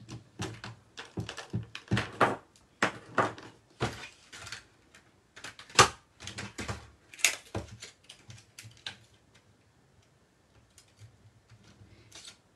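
Plastic marker pens clicking and knocking as they are picked out and set down on a desk, in a quick irregular run that thins out after about eight seconds.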